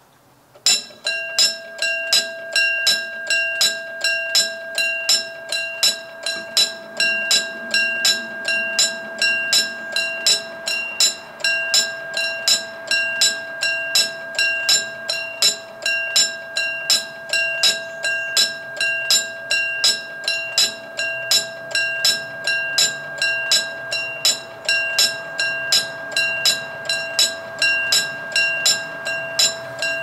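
Railroad crossing warning bell starting up about a second in and then ringing steadily at about two strikes a second: the crossing's alarm signalling an approaching train.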